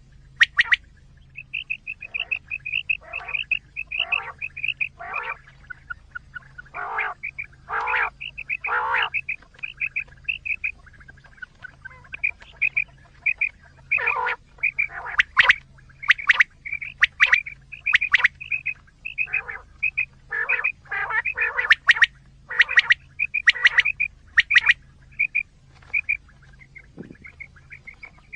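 Quail calls played as a hunting lure: quick series of short, high notes mixed with harsher, lower chattering calls, repeating with brief pauses, over a faint low hum.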